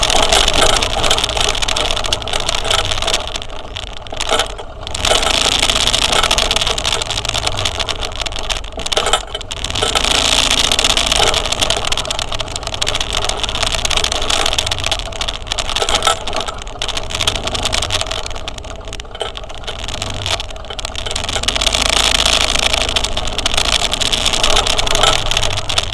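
Road noise from a moving motor scooter, its engine and the rush of travel swelling and dipping every few seconds.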